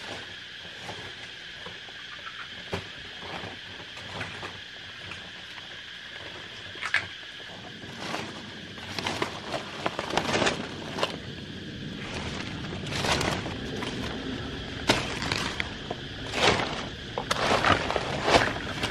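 A machete slashing at undergrowth and dry leaf litter: irregular sharp strikes and rustling that start about eight seconds in and come thicker towards the end. Under it, a steady high drone of forest insects.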